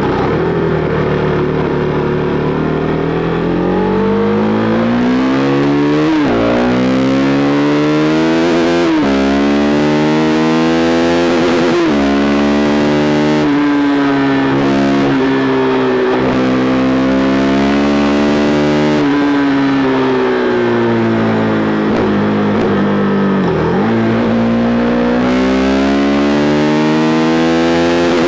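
KTM RC390's single-cylinder engine running hard through an aftermarket SC Project replica exhaust while being ridden. The exhaust note rises and falls steadily, with about five brief sharp dips in pitch that climb straight back.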